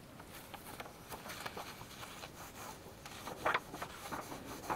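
Faint rubbing of fingers over a heat-embossed watercolour card, with light handling of the paper and a brief louder scrape about three and a half seconds in.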